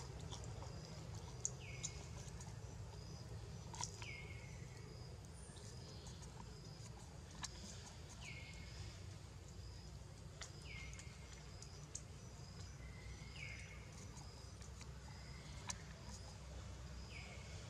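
A bird repeats a short call that falls in pitch, about every two to three seconds, over a faint, high, pulsing chirp. A few sharp clicks stand out.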